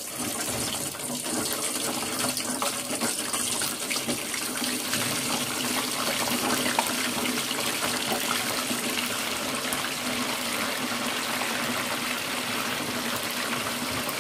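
Wet cassava pieces, fresh from an ice-water soak, sizzling and crackling in hot oil in a small steel pot at the start of their second frying: the water on them boils off fast. The sizzle swells just after the start and then holds steady.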